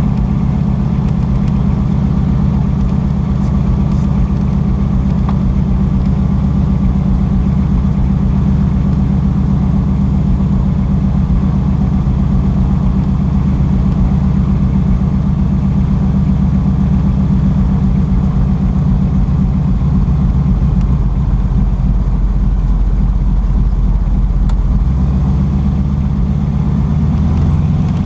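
Radial engine of a ski-equipped de Havilland DHC-2 Beaver running steadily at high power, a loud low drone; its pitch shifts a little near the end.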